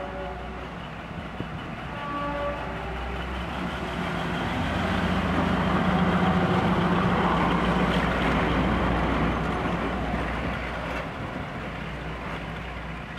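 Class 42 'Warship' diesel-hydraulic locomotive's twin Maybach V12 diesel engines working as it pulls past, the engine sound building to its loudest about halfway through and then falling away as it draws off.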